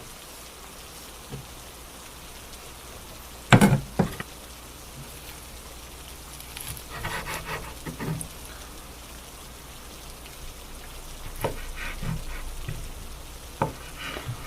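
Kitchen cooking sounds over a steady hiss: a sharp knock about three and a half seconds in and another just after. Then comes a stretch of clattering and scraping, and a few light clicks near the end.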